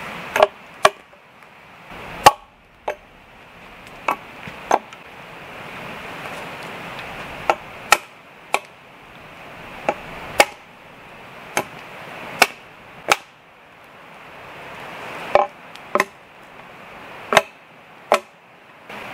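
Small axe chopping into the end of a peeled wooden pole: about eighteen sharp strikes at an uneven pace, some in quick pairs, over a steady background hiss.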